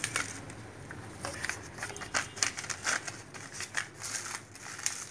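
Plastic packet crinkling and crackling as it is handled, a run of irregular sharp rustles.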